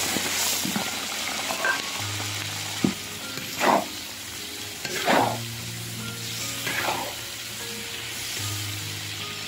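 Shrimp frying in hot oil, sizzling steadily, with the food stirred in the pan about three times, each stir a short louder swish.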